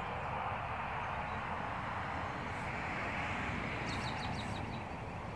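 Steady rushing noise with a low rumble, and about four seconds in a quick run of about six high chirps from a small bird.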